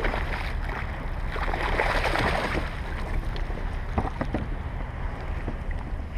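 Water splashing and lapping around a kayak, louder and splashier for about a second a little over a second in, with a couple of sharp knocks and low wind rumble on the microphone.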